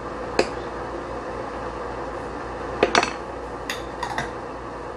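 A stirring spoon knocks and clinks lightly against a stainless steel hot pot a few times, over a steady hiss.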